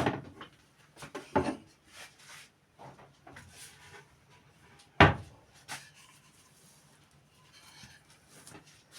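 Scattered knocks and rubbing of things being handled and set down, with the loudest knock about five seconds in.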